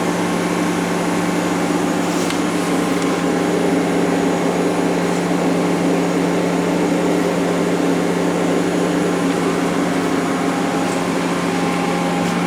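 Steady hum of a powered-up Mori Seiki ZT-1500Y CNC turning center idling with its spindles stopped, the hydraulic unit running. The low, even hum holds unchanged throughout.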